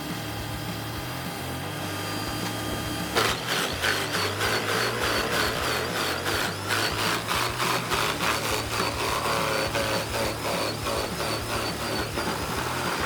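Engine of a wood-crushing machine running steadily. About three seconds in, a rapid, regular knocking starts and keeps going, louder than the engine.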